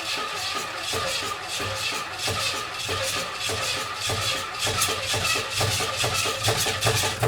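1959 Pontiac Catalina's V8 running roughly with an even, rhythmic knocking, then shutting off abruptly at the end. The owner takes the knock for something beating on the oil pan, which turned out to be a dented oil pan.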